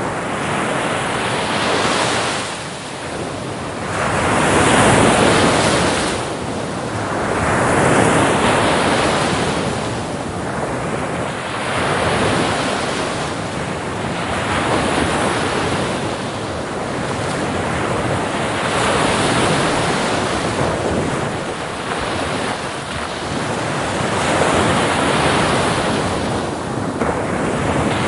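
Sea waves breaking and washing on a shore, the surf swelling and ebbing in repeated waves every few seconds.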